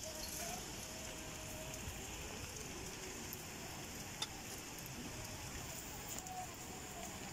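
Faint, steady hiss of outdoor background noise at night by the water, with a single sharp click about four seconds in.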